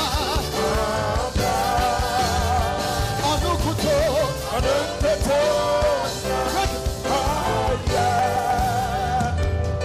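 Gospel praise song: a singing voice with wavering vibrato over full band accompaniment and a steady bass.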